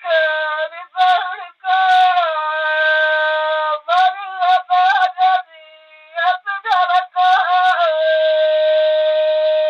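Bagheli birha folk singing: one high voice sings in short phrases with wavering, sliding notes and brief breaks. Near the end it holds one long steady note.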